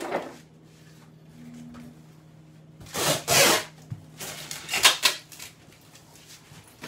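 Packing tape being ripped off a cardboard box, two long noisy tears about three and five seconds in.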